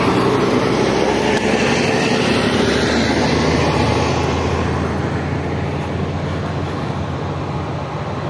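Heavy truck driving past on the highway, with engine and tyre noise that is loud at first and fades slowly as it moves away.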